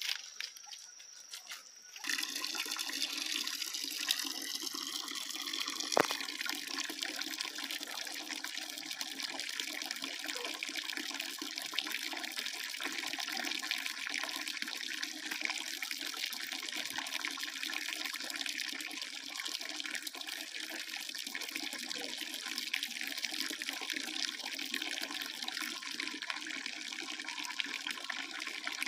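Water running steadily and splashing into a shallow basin, starting suddenly about two seconds in, with one sharp click a few seconds later.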